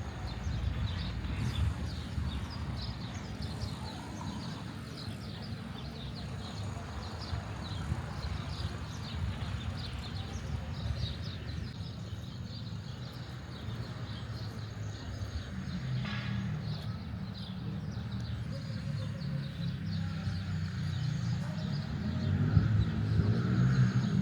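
Outdoor street ambience: a steady low traffic rumble with small birds chirping over it, and a vehicle passing close near the end.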